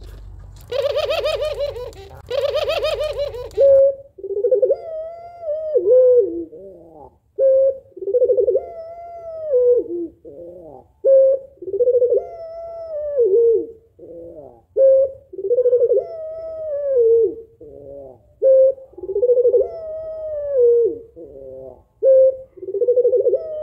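Female puter pelung (barbary dove) cooing over and over, about every two seconds: a short note, then a longer coo that rises and falls. The first few seconds hold a rougher, rolling call. It is a female's call to draw a male into singing.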